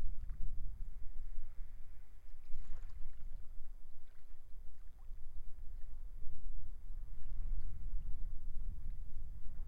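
Sea waves washing on the shore, with one brighter wash about two and a half seconds in, under a low, gusty rumble of strong wind buffeting the microphone.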